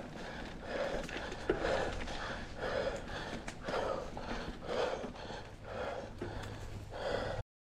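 Mountain biker's heavy breathing while riding: hard, rhythmic panting at about one breath a second. A sharp click about a second and a half in, and the sound cuts off abruptly near the end.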